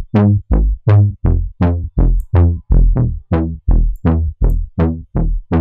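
Trombone-style 'elephant' bass patch from the Native Instruments Massive synthesizer, a saw wave through a low-pass filter, playing a steady run of short, punchy bass notes at about three a second. Each note starts bright and quickly turns dull.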